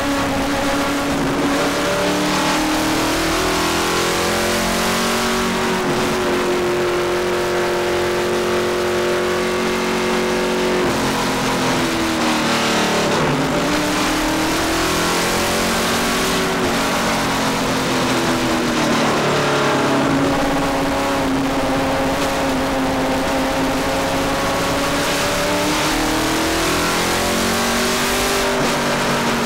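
1970 Bud Moore Boss 302 Trans Am Mustang's small-block V8 heard from inside the cockpit, running on track at a moderate pace rather than flat out. The engine note holds mostly steady, then drops and climbs back a few times around the middle.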